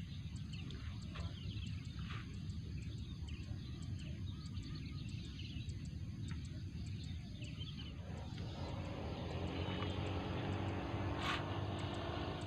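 Outdoor ambience with a steady low rumble and faint, scattered bird chirps. About eight and a half seconds in, an engine hum fades in and grows louder.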